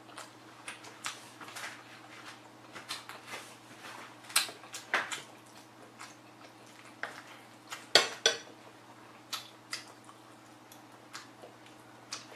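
Metal spoon clinking and scraping against a ceramic bowl in scattered short clicks, the sharpest about eight seconds in, with close-miked chewing between spoonfuls.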